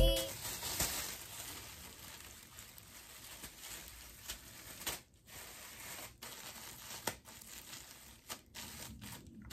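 Thin plastic processing cap crinkling faintly in short, scattered rustles as gloved hands stretch it and pull it down over the head.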